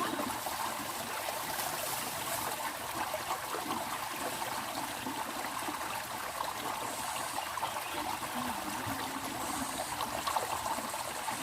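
Steady, continuous rush of a flowing stream's running water.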